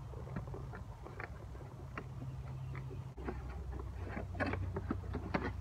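Cardboard product box and its paper inserts being handled and pulled open: scattered light scrapes, taps and rustles, busier in the second half, over a low steady rumble.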